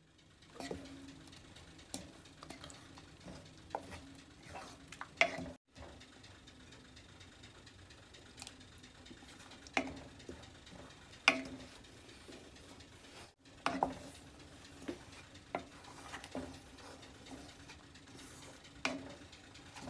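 Wooden spatula stirring thick blended corn soup in an enameled cast-iron pot, scraping through it with scattered sharp knocks against the pot. A low steady hum runs underneath, and the sound breaks off briefly twice.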